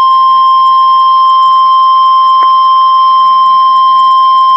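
NOAA Weather Radio 1050 Hz warning alarm tone: one steady, loud, single-pitch tone that signals an incoming weather warning.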